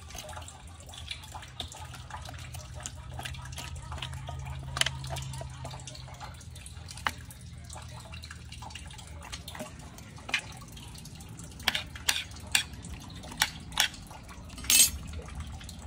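Metal spoon scraping the guts out of a split whole fish: wet squelching and scraping, with sharp clicks of the spoon against the bones and tiled surface, which come several times in quick succession near the end.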